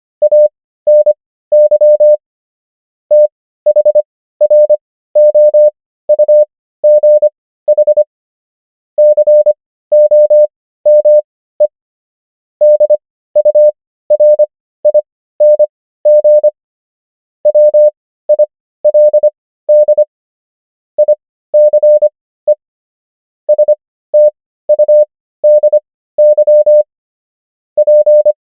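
Morse code practice tone: a single steady beep keyed on and off into dots and dashes, sending common English words with the characters at 25 words per minute and Farnsworth spacing slowing the overall pace to 15 words per minute. The words come in short clusters of beeps separated by pauses of about a second.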